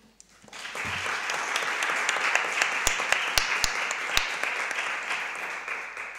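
Audience applauding, starting about half a second in and tapering off near the end, with a few louder, sharper claps close by partway through.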